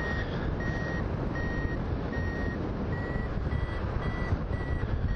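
Hang glider variometer beeping steadily, about one beep every three-quarters of a second, the pitch rising slightly in the middle and easing back near the end; the beeps signal the glider climbing in lift. Wind rushes over the microphone underneath.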